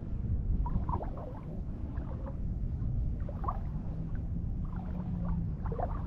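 Water gurgling and sloshing around a nylon cast net as it is drawn in by hand through shallow water, with short irregular gurgles over a steady low rumble of wind on the microphone.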